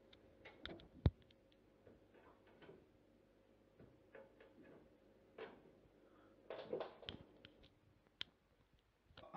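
Faint bumps and knocks of a person sliding head-first down a wooden staircase on his back, with one sharper knock about a second in and a cluster of bumps near seven seconds.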